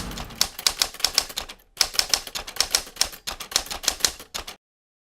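Typewriter keys clacking in a rapid, uneven run, with a brief pause about one and a half seconds in, cutting off suddenly near the end.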